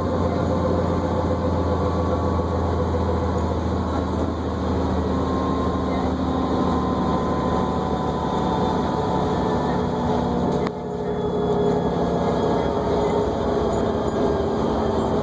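New Flyer D40LFR diesel transit bus running, heard from inside the cabin: a steady engine drone with a whine whose pitch slowly shifts. The sound briefly drops off about ten and a half seconds in, then picks back up.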